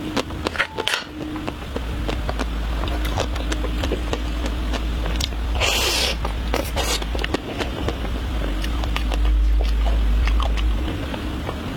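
Close-miked eating of chocolate ice cream: scraping and many small wet mouth clicks, with a brief hissy slurp about six seconds in. A steady low rumble runs underneath and swells near the end.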